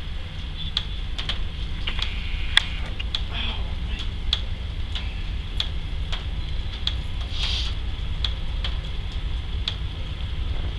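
Regular ticking, about one and a half ticks a second, over a steady low rumble.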